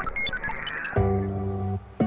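Background music: scattered high twinkling notes, then a soft held chord about a second in, as the track moves from an electronic dance beat to a calm ambient piece.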